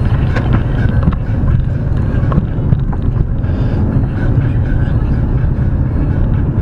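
Car driving: a steady low rumble of engine and road noise, with a few light clicks in the first couple of seconds.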